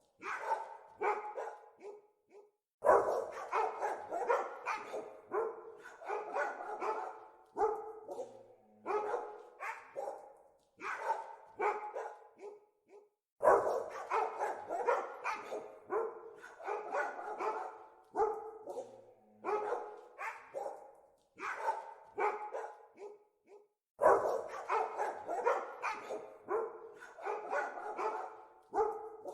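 Dogs barking over and over, about two barks a second. The barking swells louder three times, about ten seconds apart.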